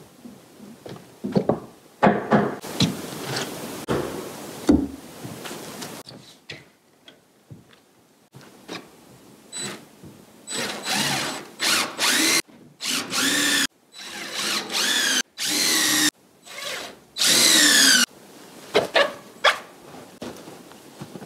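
Power drill run in several short bursts, its motor pitch rising and falling with each burst, after a few knocks on wood at the start.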